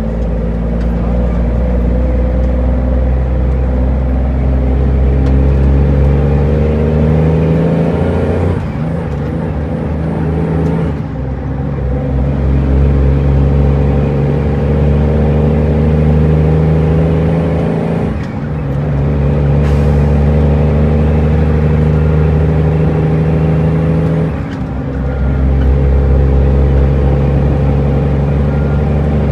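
Cummins N14 inline-six diesel of an International truck heard from inside the cab, pulling under load with its pitch climbing steadily in each gear. Three times the note breaks off and drops as the 13-speed transmission is shifted up, then climbs again.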